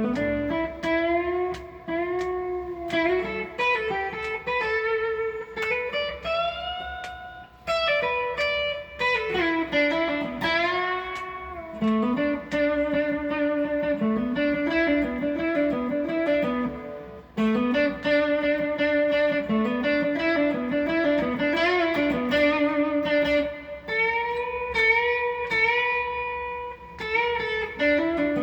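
Electric guitar playing a single-line melody, picked notes with frequent string bends.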